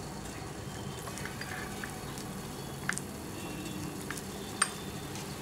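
A metal spoon stirring barley powder and water into a paste in a stainless steel bowl, with a few light clicks of the spoon against the bowl. The two sharpest clicks come about three and four and a half seconds in, over a faint steady hum.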